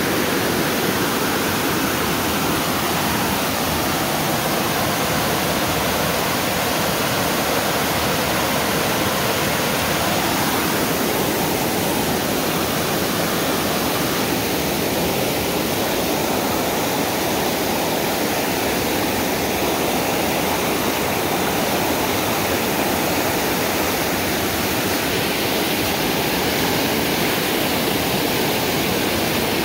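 A river's fast water rushing over rocks and a low ledge in rapids: a steady, even rush of white water.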